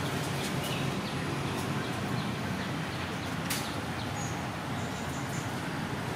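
A cat and a kitten chewing food off a plastic plate: scattered small clicks of eating, one sharper about halfway through, over a steady low background rumble. A few faint high bird chirps come after the middle.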